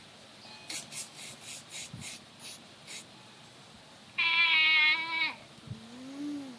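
A young child's vocal sound effects: a quick run of clicking mouth noises, then about four seconds in a loud, drawn-out cat-like meow, followed by a lower call that rises and falls.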